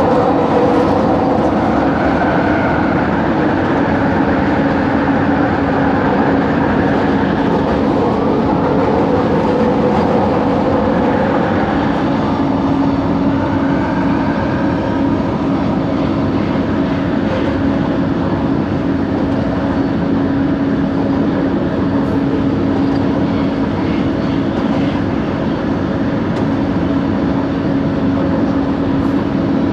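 Light-rail train car running between stations, with a steady rolling rumble. Over it sits a constant droning tone, the odd motor noise from this car (coach 4 of set 70). Faint higher whines rise and fall now and then in the first half.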